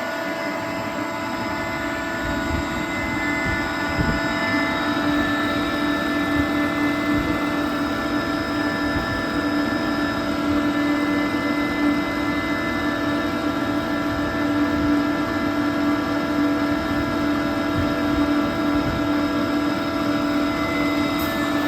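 Renner RS 22 22 kW rotary screw air compressor running steadily under load: an even machine hum with a strong low tone and several higher whining tones. It is building pressure into the air receiver on its way up to 10 bar.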